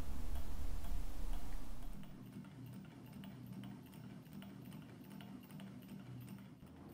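Small Stirling engine running on the heat of a cup of hot coffee, its piston and flywheel ticking softly and regularly. A louder low rumble in the first two seconds drops away about two seconds in.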